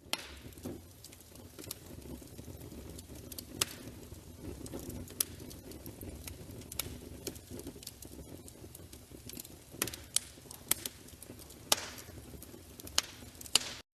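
An open fire burning and crackling: a steady low rumble and hiss of flames with sharp pops scattered throughout.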